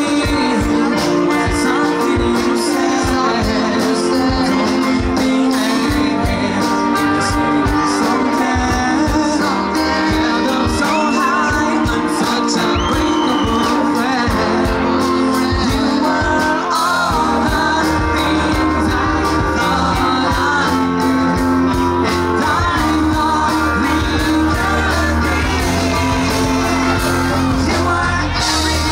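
Live band playing a rock song with a singer on lead vocals. The bass grows heavier about halfway through.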